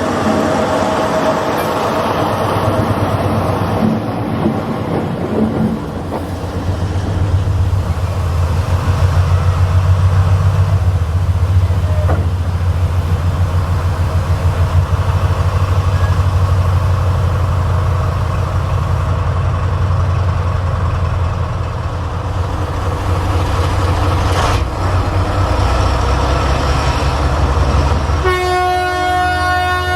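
Class 70 diesel locomotive's V16 engine running with a deep, pulsing throb. Near the end its horn sounds.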